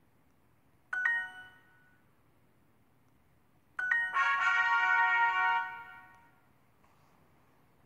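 Duolingo app's correct-answer chime, a short bright ding, about a second in. A second chime near four seconds runs straight into a louder, fuller jingle of several notes held for about two seconds, the app's reward sound as the lesson finishes with a combo bonus.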